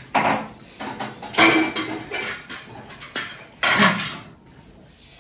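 Dishes and cutlery clinking in several short, separate bursts during a meal.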